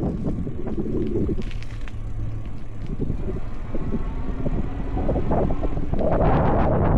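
Wind buffeting the microphone over the rumble of a moving electric bike, with light knocks from the ride. It gets louder about six seconds in.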